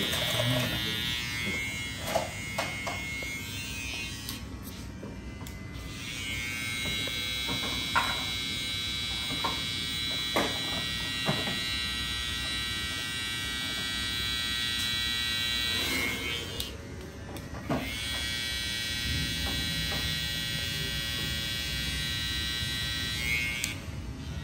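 Electric hair clippers buzzing with a steady whine during a fade cut. The whine drops away twice, once for a couple of seconds about a third of the way in and once for a second or two later on, then starts again. A few light clicks come through now and then.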